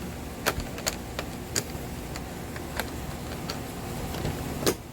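Scattered sharp clicks and knocks, a second or so apart, as hurricane shutters and their fittings are handled, over a low steady hum. The loudest knock comes near the end.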